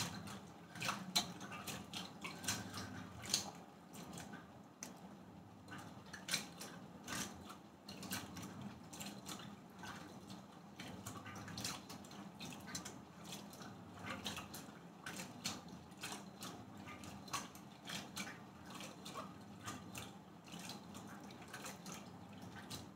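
Water sloshing and splashing softly in a steel pot as hands gently swirl and rub raw cut potato sticks, washing the starch out of them. The small splashes come irregularly, a few a second.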